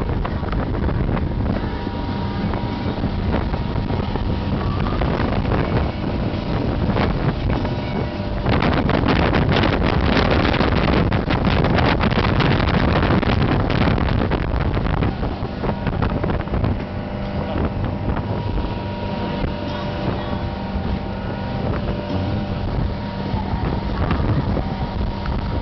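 Motorboat running at speed across choppy water, its engine drone steady under wind buffeting on the microphone and the rush of the hull through the chop. The wind and water noise grows louder and gustier from about a third of the way in until just past halfway.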